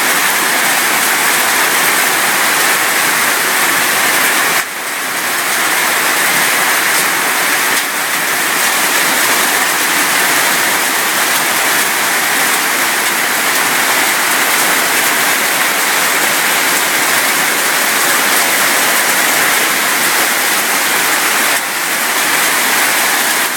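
Heavy rain falling, a steady, dense hiss that dips briefly twice.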